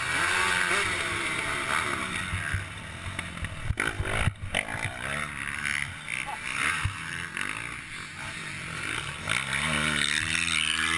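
Motocross bike engine revving up and down from the rider's seat, over a steady rush of wind on the helmet-camera microphone. A couple of sharp knocks about four seconds in.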